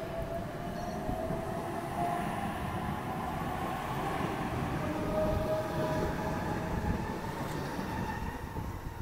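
OSCAR (H set) double-deck electric train accelerating close past on the platform, with rolling rumble and the traction motors' whine rising in pitch. It grows louder toward the end before easing off.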